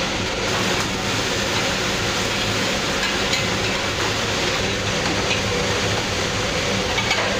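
Steady rushing machine noise with a low hum from electric automatic stir-fry cooking robots running in a commercial kitchen, with a few light clinks of a metal ladle scooping food from a drum.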